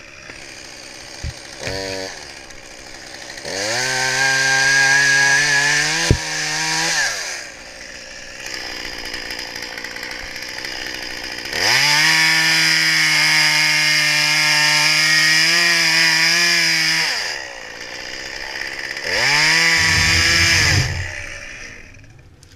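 Chainsaw revved to full throttle in three long runs, rising quickly in pitch and dropping back to idle between them, with a short blip of throttle near the start.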